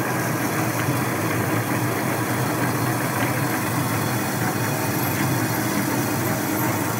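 A 10-horsepower metal lathe runs steadily under a heavy cut, turning down the steel flange of a Volvo portal axle's stub axle as long stringy chips come off the tool.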